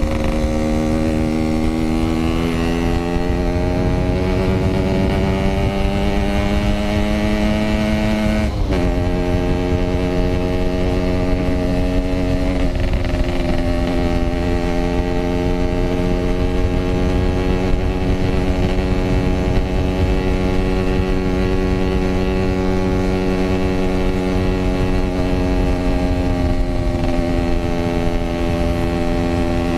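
Yamaha RX-King 135cc single-cylinder two-stroke engine running under way: its note climbs slowly for about eight seconds, drops sharply at a gear change, then holds a fairly steady cruising pitch.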